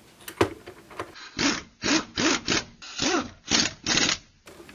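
A cordless electric screwdriver drives screws into the oscilloscope's back cover in several short bursts, its motor pitch rising and falling with each run. There is a sharp knock about half a second in.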